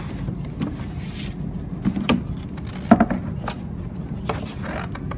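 A cardboard box being handled and rummaged on a wooden table, giving a handful of short knocks and bumps over a steady low room hum.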